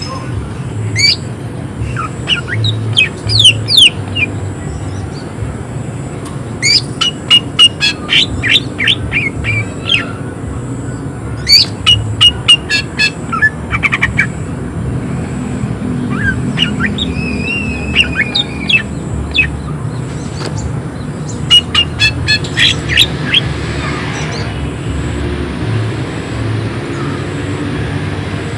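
A cucak ijo (green leafbird) singing in rapid bursts of sharp, harsh repeated notes: the agitated, high-energy 'shooting' song. Five or so quick phrases with short pauses between them, one of them warbling, over a steady low hum.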